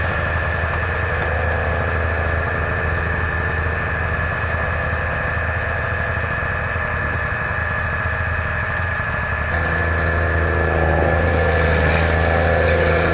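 Snowmobile engine idling steadily, growing a little louder and fuller about two-thirds of the way in.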